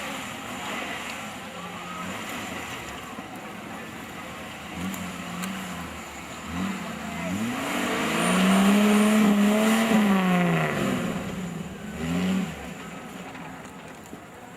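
Off-road 4x4's engine revving: a few short blips, then one longer rev that climbs and falls back, loudest about eight to ten seconds in.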